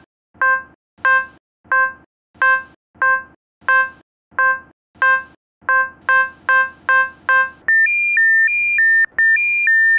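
Electronic tracking beeps, about three every two seconds, that quicken near the end, giving way about eight seconds in to a steady alternating high-low two-note alert tone. It is a 'searching… target found' sound effect.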